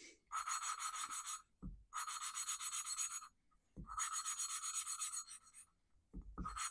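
Valve on a Kohler Command cylinder head being hand-lapped into its seat with fine grinding compound. It makes four bursts of gritty, rapid back-and-forth rubbing, each a second or two long, with a short dull knock in the gaps between bursts.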